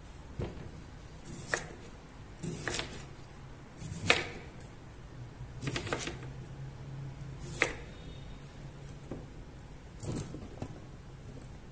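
Kitchenware being handled: scattered sharp clicks and knocks at uneven intervals, about a dozen, some in quick pairs, the loudest about four seconds in.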